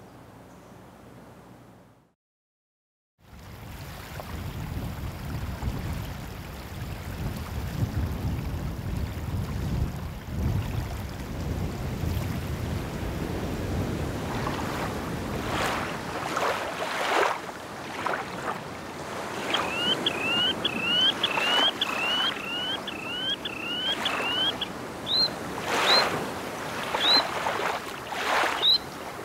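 After a faint fade-out and about a second of silence, wind and small waves wash and lap against a shell beach, with splashes growing more frequent past the middle. About two-thirds in, a bird gives a quick run of about ten short rising calls, followed by a few single higher calls near the end.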